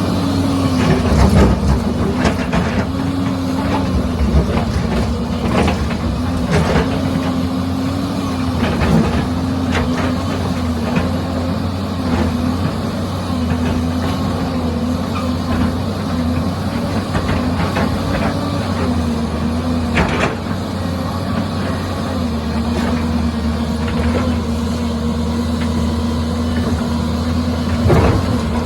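An excavator's diesel engine running steadily, its note wavering a little, with scattered sharp clanks and knocks throughout.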